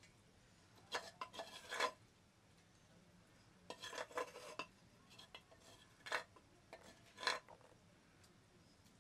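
Metal serving spoon scraping inside a small clay pot and clinking against metal plates as chicken curry is spooned out, in four short spells of scrapes and clinks.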